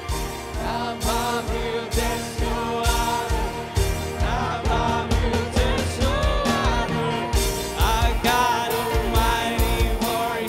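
Worship song played by a live band with a steady drum beat, a voice singing a melody over it.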